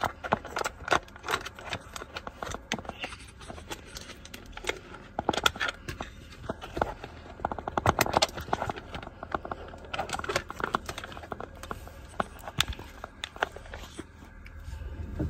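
Irregular plastic clicks, taps and handling rustle of a phone being fitted and adjusted in a car phone holder. A low steady hum comes in near the end.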